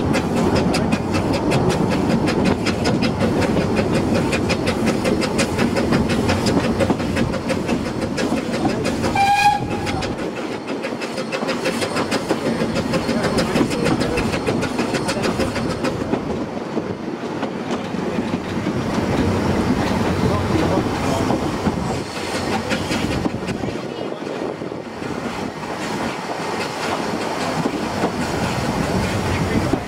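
Narrow-gauge steam train running, heard from one of its carriages, with one short whistle blast from the locomotive about nine seconds in.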